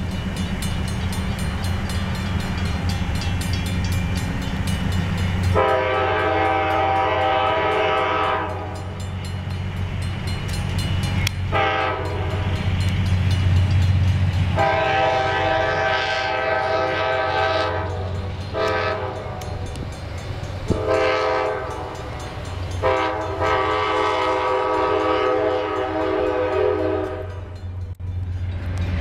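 Diesel locomotive air horn sounding five blasts: a long one, a short one, then three longer ones. Under them runs the steady low rumble of the locomotives' diesel engines.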